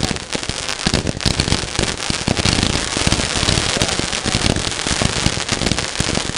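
Consumer firework barrage going off: a dense, rapid run of bangs and crackles, many reports a second without a break.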